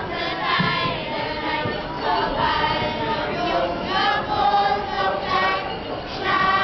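A group of children singing a Swabian-Alemannic Fasnet carnival song together as a choir.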